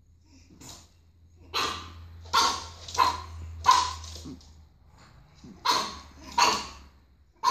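Pug puppy barking: four short barks in quick succession, then two more after a pause of about a second and a half.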